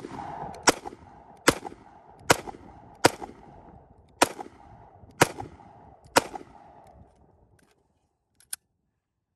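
Semi-automatic pistol firing seven shots in the open, about one a second at first and then a little slower, each with a short echo. A single faint click comes near the end.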